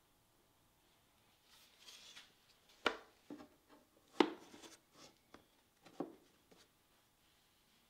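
Handling sounds: some light rustling, then a series of sharp knocks and taps as objects are picked up and set down, the loudest about four seconds in.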